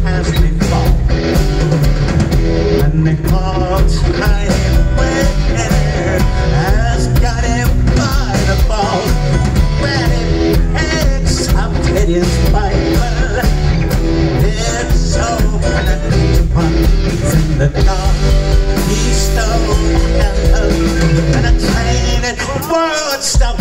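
Live rock band playing on stage, electric guitars, bass guitar, drums and keyboards heard through the PA. The level stays loud and steady, with a brief drop in the low end near the end.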